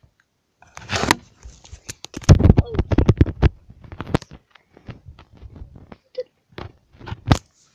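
Handling noise from a phone camera being grabbed and covered: its microphone is rubbed and knocked in a string of clicks and bumps, with a loud rumbling scrape about two to three and a half seconds in.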